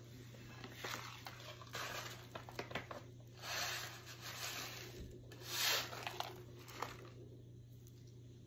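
Rustling and rubbing of cloth and skincare items being handled, in several short bursts with a few light clicks.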